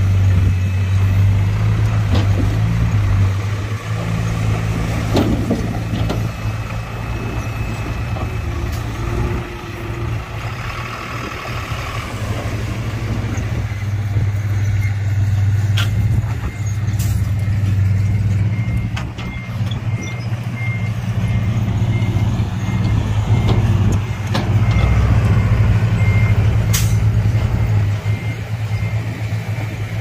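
Heavy diesel earthmoving machinery running steadily under load, with a few sharp metallic clanks. In the second half a reversing alarm beeps in an even series.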